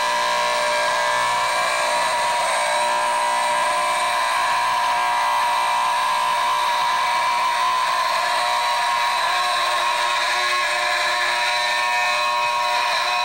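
Building fire alarm sounding continuously: a steady, unbroken high ringing made of several fixed tones, with no pauses.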